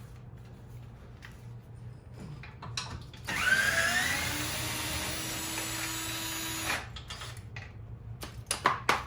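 Cordless drill running on a suspension bolt for about three seconds, its whine rising as it spins up, then stopping. A few sharp clicks of metal parts follow near the end.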